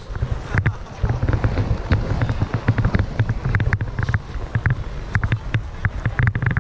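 Wind buffeting the camera microphone in an uneven low rumble, with short crunching footsteps on packed snow scattered through it.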